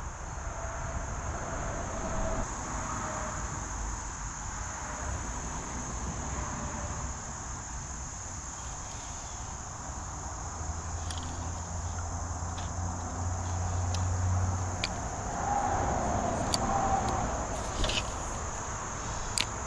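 Steady high-pitched insect chorus of summer, with a low hum for a few seconds in the middle and a few sharp clicks in the second half.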